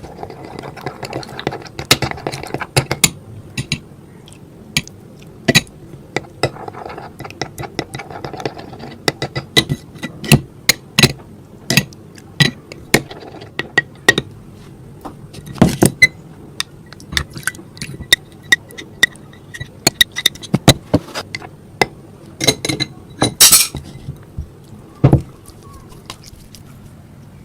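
A spoon clinking and scraping irregularly against a mixing bowl as slime ingredients are stirred together, with many sharp taps and a louder clatter near the end.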